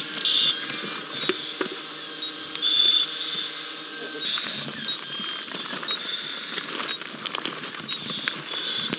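Short high-pitched beeps from a handheld gas detector, recurring every few seconds, over clicks, rustling and footsteps on loose shore stones.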